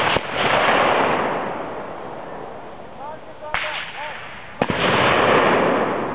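Three sharp bangs, at the start, about three and a half seconds in and just under five seconds in, each followed by a rushing noise that fades over a second or two, typical of pyrotechnic blasts.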